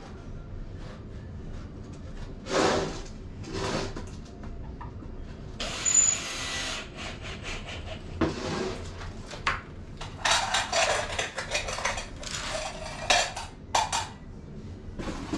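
Wooden boards being handled and slid against one another: a string of irregular scraping and rubbing noises, with a longer, brighter scrape about six seconds in.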